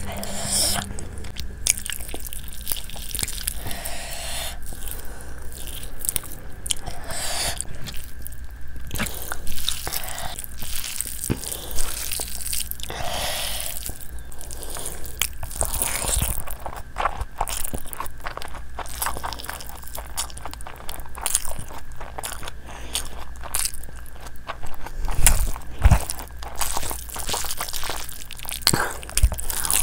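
Close-miked eating of saucy chicken and fried rice: chewing and biting with many small crunches and wet mouth clicks, alongside fingers squishing through the food, with a few heavier thuds about 25 seconds in.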